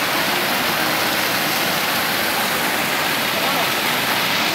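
Muddy floodwater rushing in a fast, churning flow past an eroding earthen bank, a steady loud rush of water with no breaks.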